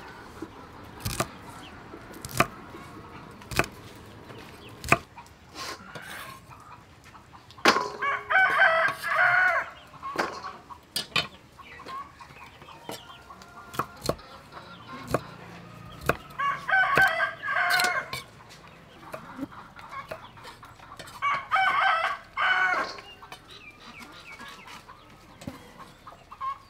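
A steel cleaver chopping long beans on a wooden chopping block, sharp knocks about once a second. A rooster crows three times, each crow lasting a second or two, the first about eight seconds in; the crows are the loudest sound.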